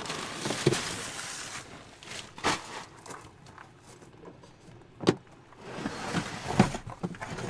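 A bag rustling as it is lifted out of a truck camper's storage compartment, then a few sharp knocks and clunks as a plastic storage bin of firewood, strapped with a bungee cord, is handled and pulled out.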